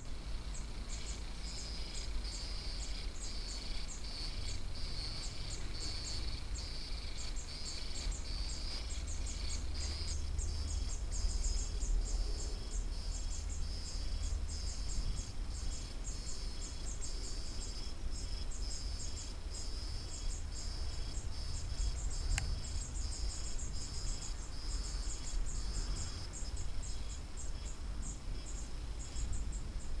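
Insects stridulating in a steady chorus of rapid, evenly repeated high chirps, over a low rumble.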